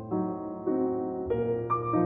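Background music: a slow, gentle piano melody, a new note about every half second.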